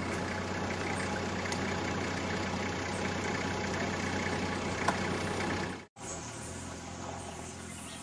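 A steady low hum and rumble, like an engine idling, that cuts off abruptly about six seconds in; a quieter background follows.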